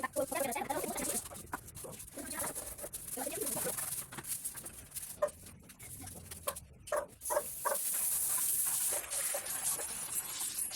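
Birds calling: a run of short pitched calls over a steady high hiss.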